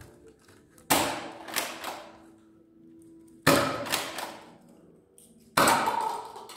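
Nerf foam-dart blaster firing three shots, each a sharp pop that fades over about a second, roughly two to two and a half seconds apart.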